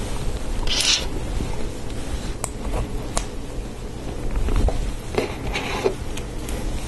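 Small LEGO Technic plastic parts being handled and fitted together by hand, an axle pushed into a lift-arm assembly, with a couple of sharp plastic clicks and short rustles.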